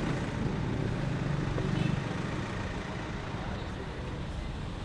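Steady road noise of a moving vehicle.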